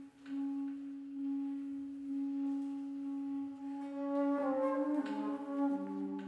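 Flute holding a long, steady low note. About four seconds in, further sustained tones from the ensemble enter with it, and a lower note joins about a second later.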